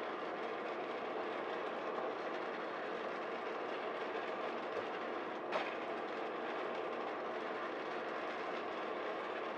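Mid-roast coffee beans tumbling in a West Bend Stir Crazy under a turbo convection oven: the oven's fan makes a steady whirring rush over a light rattle of beans. There is one sharp click about five and a half seconds in.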